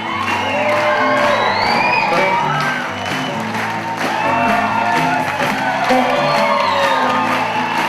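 Live music playing with a crowd cheering and whooping over it.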